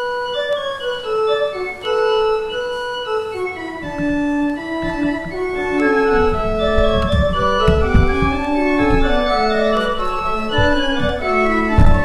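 Church organ playing a postlude at the end of the service: held chords moving from note to note. Deep bass notes come in about five seconds in, and the music grows louder.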